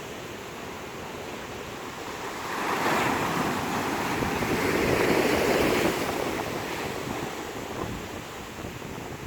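Rough-sea surf: a wave breaks, building about three seconds in and dying away a few seconds later, over a steady wash of surf. Strong wind is on the microphone.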